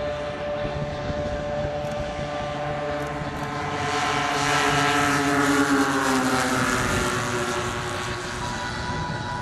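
The four single-cylinder 38cc petrol engines of a 1/6 scale RC Avro Lancaster running together on a low flypast. They grow louder to a peak about five seconds in, then drop in pitch as the aircraft passes.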